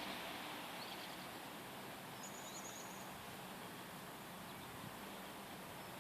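Steady outdoor background hiss, with a small bird's brief rapid trill about two seconds in and a few faint chirps.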